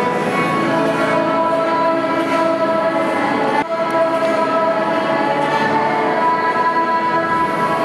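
Music of long held chords, the chord changing about halfway through.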